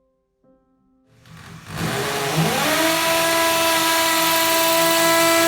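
Electric drill in impact mode boring a 5 mm hole into a brick wall. It starts about a second in, rises in pitch as it spins up, then runs at a steady pitch.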